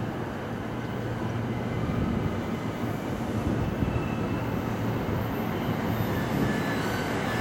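Approaching electric commuter train: the rumble of its wheels on the rails and its motors grows steadily louder as it nears.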